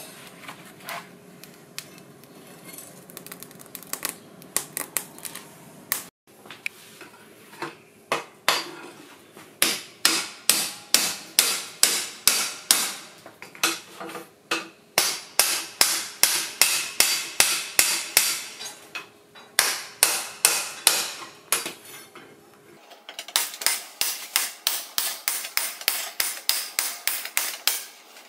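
Hammer blows forging a piece of suspension coil spring steel into a knife blade, sharp metal-on-metal strikes at about two a second, coming faster near the end.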